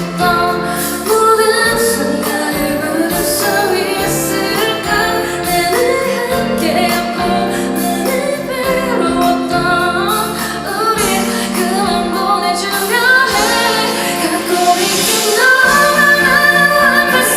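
A female pop singer singing live over band accompaniment, the sung melody carried continuously over sustained chords.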